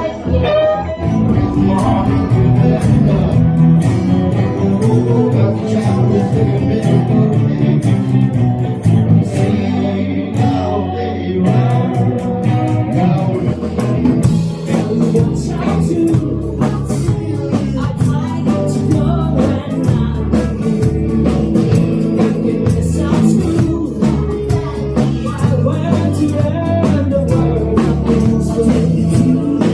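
Rock band playing a 1960s-style song, guitar with singing.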